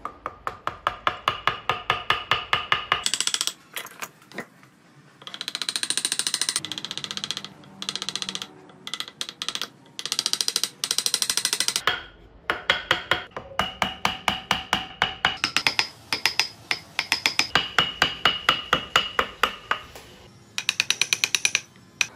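A small hammer tapping a steel carving chisel into hardwood in rapid runs of about six or seven blows a second, each blow with a short metallic ring; the runs last one to three seconds and are broken by brief pauses as the chisel is reset.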